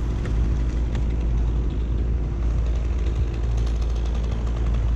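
An engine idling steadily, with a constant deep hum and a fine, even ticking.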